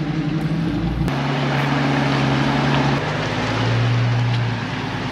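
Off-road rig engines running as they drive through a shallow creek crossing. The engine note shifts in pitch a few times, about a second in and again about three seconds in, over the wash of water churned up by the tyres.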